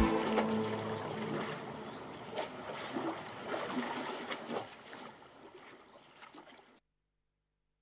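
Small waves lapping and splashing irregularly against a stone lakeside embankment, gradually fading out and stopping about seven seconds in.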